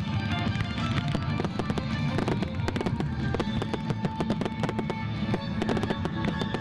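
Consumer fireworks going off in rapid, irregular crackles and bangs over music played for a fireworks show set to music.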